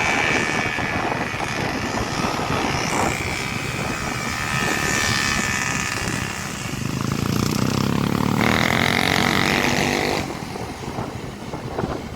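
An engine running under a steady rush of noise; about seven seconds in it revs up, holds high for a couple of seconds, then drops back.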